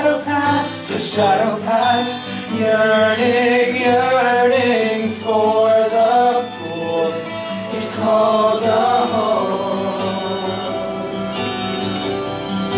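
Live musical-theatre song: wordless voices on a long 'oh' over band accompaniment, the melody bending through the first eight or nine seconds, then settling into sustained held chords near the end.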